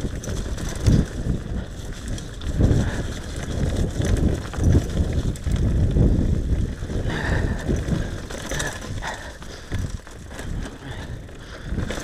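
Full-suspension downhill mountain bike ridden fast down a dirt trail strewn with leaves: tyres rumbling over the ground, with irregular knocks and rattles as the bike hits bumps.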